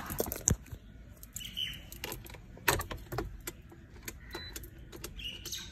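Scattered sharp clicks and knocks of hands working the controls inside a car's cabin, with a few faint bird chirps from outside near the start and the end.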